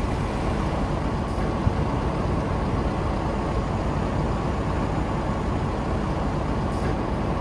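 ČKD class 754 diesel locomotive idling at a standstill: a loud, steady engine rumble.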